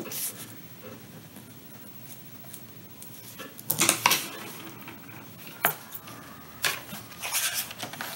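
A pen and paper journal handled on a wooden tabletop: scattered sharp clicks and taps, the loudest pair about four seconds in, with more clicks and paper rustle near the end.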